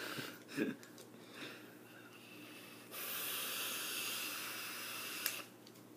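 A drag on a sub-ohm vape with a freshly built dripping atomizer: a steady hiss of air drawn through it, with a faint thin whistle, lasting about two and a half seconds from about three seconds in and stopping abruptly.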